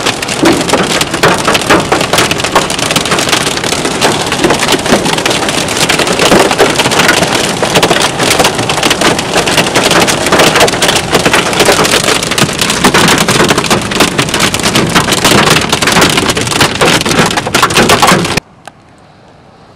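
Quarter-size hail and rain hitting a car's roof and windows from inside the car: a loud, dense clatter of countless small impacts that cuts off suddenly near the end.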